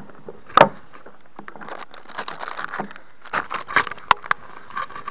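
Handling and rummaging noise from fishing gear and a soft-sided tackle bag: an irregular run of knocks, scrapes and rustles, with sharp knocks about half a second in and again just after four seconds.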